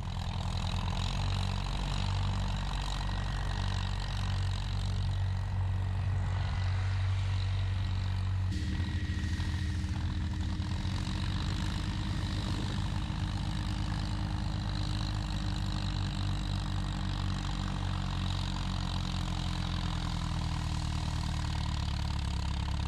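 Engine of an earthmoving machine running steadily while working dirt. Its note changes about eight and a half seconds in, when a steady hum joins it.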